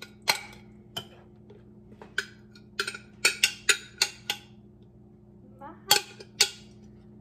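A utensil clinking and scraping against the inside of a glass coffee-maker carafe while thick noodles are dug out of it: scattered sharp clinks, a quick run of them a few seconds in and two more near the end. A steady low hum runs underneath.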